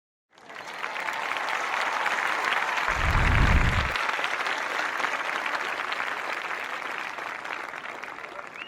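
Crowd applause, many hands clapping at once, swelling in quickly and then slowly thinning out toward the end. A low rumble sits under the clapping for about a second around three seconds in, the loudest moment.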